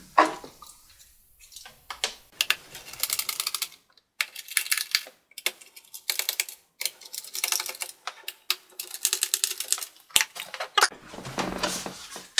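Small Phillips screwdriver backing screws out of the underside of a ThinkPad X230T: several bursts of rapid clicking, each about a second long, with short pauses between them. A louder handling noise comes near the end.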